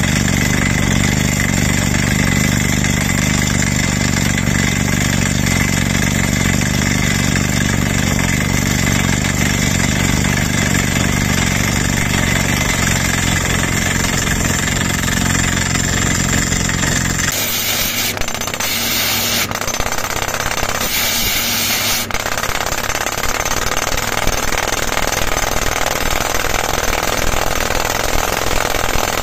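JK590 drill rig drilling with its pneumatic down-the-hole hammer: a loud, steady, dense hammering over the rig's engine. About two-thirds of the way through the deep engine drone drops away, leaving the hammering on its own.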